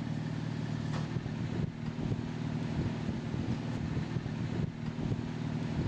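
A car driving along a rough dirt track, heard from inside the cabin: a steady engine drone with occasional knocks and rattles from the bumpy ground.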